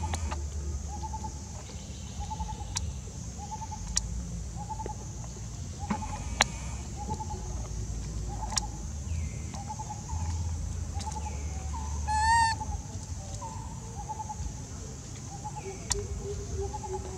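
A bird repeats a short hooting note over and over, about once a second, over a steady high insect hiss. A few sharp clicks and, about twelve seconds in, one louder wavering call stand out.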